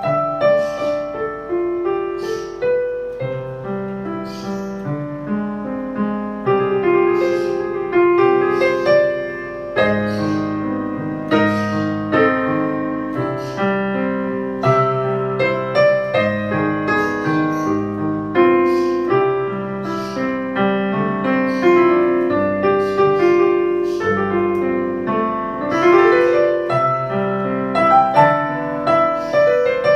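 Piano music, a melody over chords with notes struck about once or twice a second.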